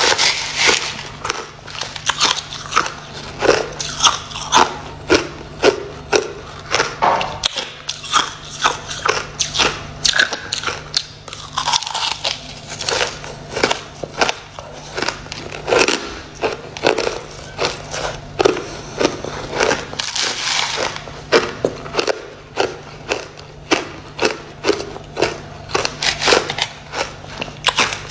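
Crushed clear ice crunched between the teeth in quick, repeated crisp bites, close to the microphone.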